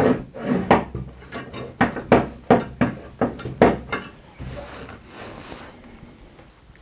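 Metal wiper ring of an old tubular power resistor being scrubbed and scoured to clean its dirty, corroded contact surface: a quick series of short scraping strokes, about two to three a second, easing to softer rubbing after about four seconds.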